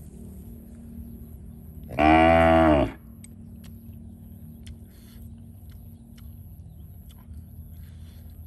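A single loud, drawn-out animal call begins about two seconds in and lasts about a second. A few faint clicks sound over a steady low background hum.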